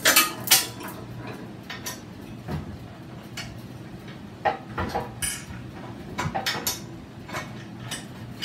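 Steel chain and the snow plow's metal hardware clinking and rattling in irregular sharp clinks while the chain is handled and fitted to the plow frame; the loudest clinks come right at the start.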